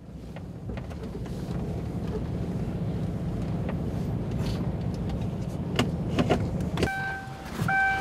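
Vehicle cabin noise while driving in rain: a steady low engine and road rumble with scattered light knocks. Near the end the rumble drops away and a high tone starts beeping on and off.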